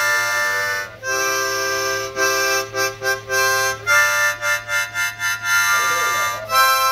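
Juarez harmonica played with hands cupped around it: held chords, a brief break about a second in, a run of short choppy notes, then another long held chord and quick short notes near the end.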